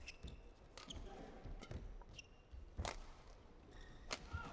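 Badminton rally: about four sharp cracks of rackets striking the shuttlecock, the loudest two in the second half, with brief shoe squeaks on the court floor between them.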